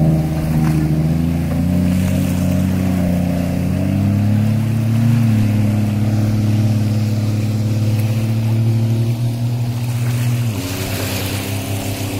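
Jet ski engine running steadily. Its pitch rises slightly about four seconds in and drops about ten seconds in, when a hiss comes in.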